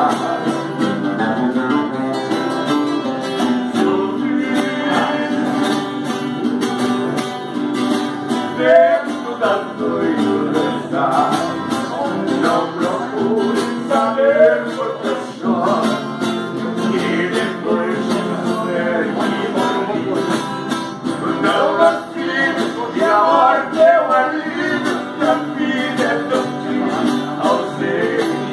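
Music: acoustic guitar playing with a singing voice over it.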